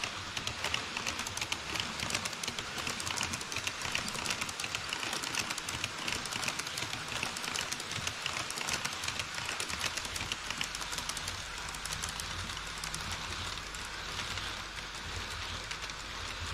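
HO-scale model trains rolling over a truss bridge on KATO Unitrack: a rapid, steady clicking and rattling of small metal wheels over the track. A low hum joins about ten seconds in, as a freight train of tank wagons follows an E5 Shinkansen model across.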